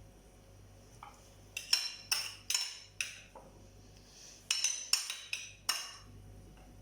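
Kitchen utensils clinking and knocking against a strainer and bowl: about ten sharp taps in irregular clusters while grated onion is moved into the strainer to drain off its juice.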